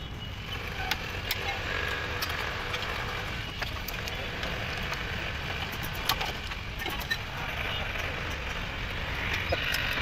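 Scattered light metallic clicks and taps of a screwdriver working at the shoes and backing plate of a drum brake, over a steady low background rumble.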